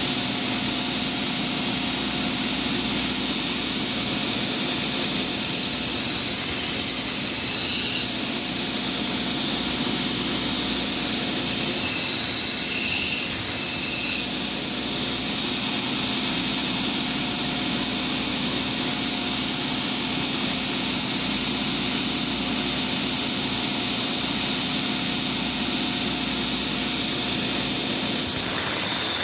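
A 2 x 72 inch belt grinder running, the abrasive belt giving a steady loud hiss over a constant motor hum, as knife edge bevels are ground on it. Twice, briefly, higher grinding tones rise over the hiss.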